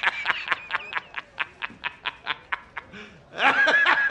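A man laughing hard in a fast, even run of 'ha-ha-ha' pulses, about four or five a second, rising into a higher, drawn-out laugh near the end.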